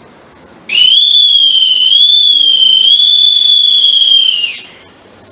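Boatswain's call (bosun's pipe) sounding one long, loud, high note of about four seconds, starting about a second in, wavering slightly in pitch and dropping off at the end: a ceremonial naval salute being piped.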